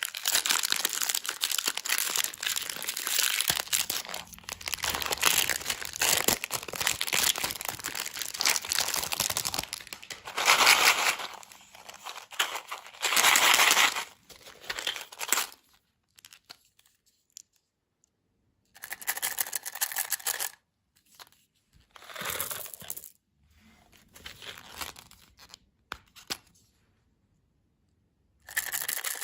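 Candy packaging being torn open and crinkled: a dense stretch of crackling for about ten seconds, two louder tears after it, then a few short rustles and tears with pauses between.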